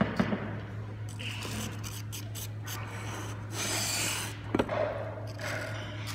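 A glazed ceramic tile rubbing and scraping on a work table as it is turned around by hand, with a couple of light knocks, one just after the start and one about four and a half seconds in, over a steady low hum.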